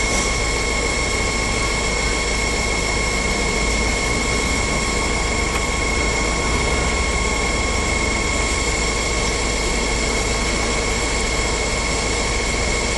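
Steady drone of running machinery with a constant high whine, unchanging throughout.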